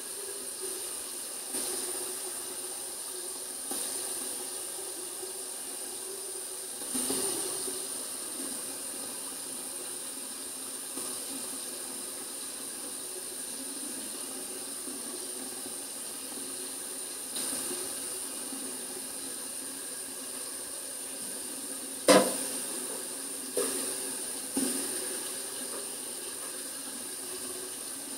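Manual toothbrush scrubbing teeth, heard as a steady hiss. About two-thirds of the way in come a sharp knock and then two softer knocks.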